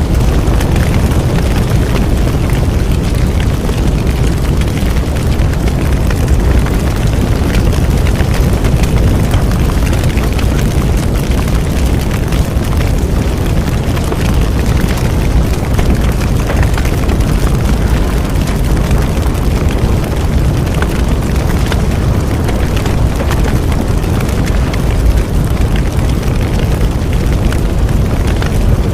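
Large bonfire burning: a loud, steady low rumble with continual crackling.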